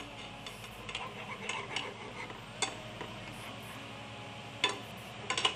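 A metal spoon stirring paneer in a thick chilli sauce in a non-stick frying pan, scraping and clinking against the pan a few times, with a cluster of clinks near the end. Under it is a faint steady sizzle of the sauce, just thickened with cornflour slurry, cooking on the flame.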